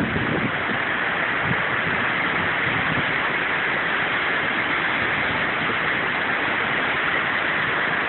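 Heavy rain pouring down in a storm: a steady, dense hiss.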